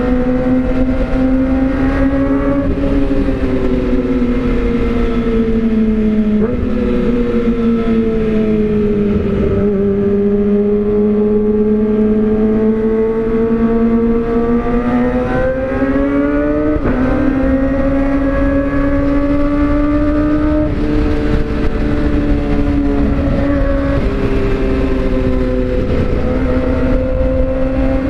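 Kawasaki ZX-25R's inline-four engine running through an Austin Racing aftermarket silencer while riding, its note held at high revs and drifting slowly up and down, with a few brief dips in pitch like gear changes. A low rumble of wind runs underneath.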